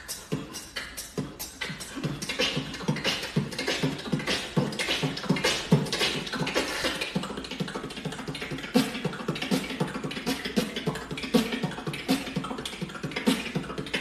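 Beatboxing: fast mouth-made drum sounds in a steady rhythm, kick, hi-hat and snare strokes (B, T and K) following a written B-T-K-T pattern.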